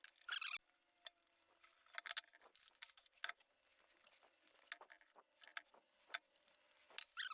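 Light, irregular clicks and rattles of small parts and tools being handled during wiring work.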